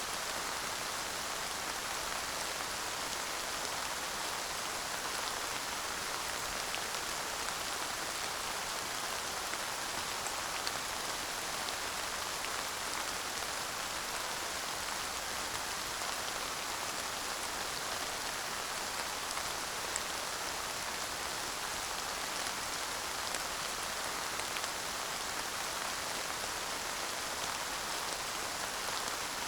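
Steady light rain falling, an even hiss with a few faint drop ticks.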